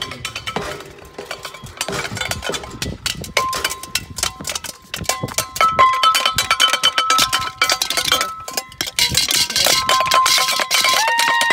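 New Year's noisemaking: rapid, irregular metallic banging and clanging, with steady ringing tones through the middle of it and a held tone starting near the end.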